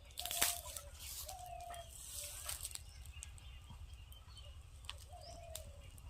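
Faint outdoor ambience: a steady low rumble, a few scattered clicks, and several short, faint calls, likely birds, spread through the clip.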